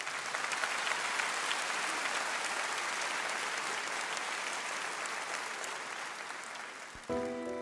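Large audience applauding, swelling in at once and holding steady. Near the end, music begins with sustained notes.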